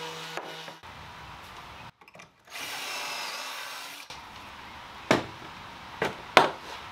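A cordless drill runs briefly, driving screws into plywood, then a few sharp knocks of plywood panels against each other and the workbench.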